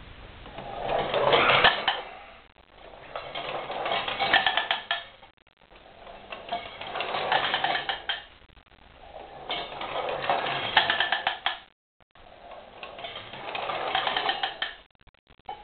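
Wound-up clockwork spring motor of a 1920s tin-plate toy steam roller running, its gears whirring and its tin rollers clattering across tiles. The metallic rattle swells and fades in about five waves a few seconds apart.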